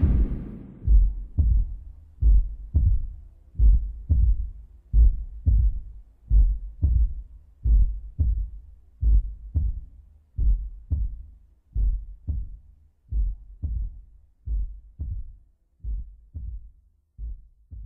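Heartbeat sound effect: paired low thumps, lub-dub, about every second and a third, gradually fading.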